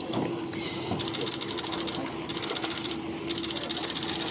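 Insects trilling in fast buzzing pulses, in repeated bursts about a second long with short breaks between them, over a steady low hum.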